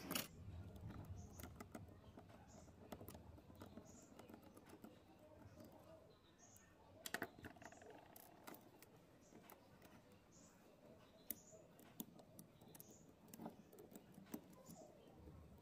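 Faint, irregular small clicks and light taps of tools and small parts being handled while a cassette player is worked on, with a brief cluster of louder clicks about halfway through.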